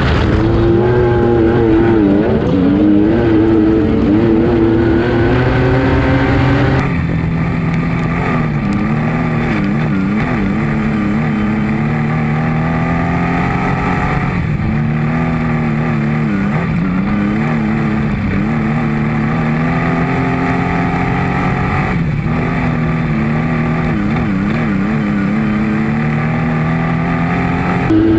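Wingless sprint car engine heard from an onboard camera while racing on a dirt oval, the revs rising and falling again and again through the corners. The sound changes abruptly about seven seconds in.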